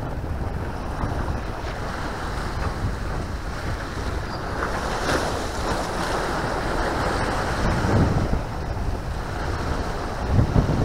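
Wind buffeting the microphone over the wash of River Mersey waves at a high spring tide, with surges of louder splashing about five seconds in, around eight seconds, and near the end.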